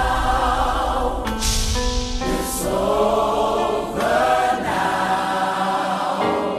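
Gospel music with a choir singing. A brief rushing swell of noise comes in about a second and a half in.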